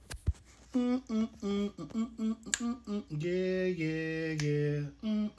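A man humming a tune with his mouth full while eating spicy stew: a run of short notes, then a few longer held ones. A couple of sharp clicks from the plastic spoon in the food tub come right at the start.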